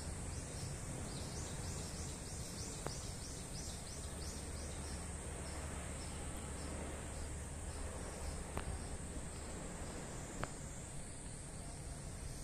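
Pool water sloshing and churning as a bathing Indian elephant rolls submerged in it, over a steady high-pitched insect drone. A run of quick chirps comes in the first few seconds.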